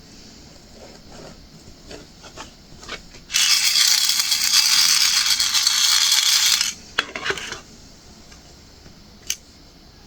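Small plastic diamond-painting drills rattling in a tray for about three seconds, a dense steady clatter. Before and after it come a few light taps of the drill pen on the canvas.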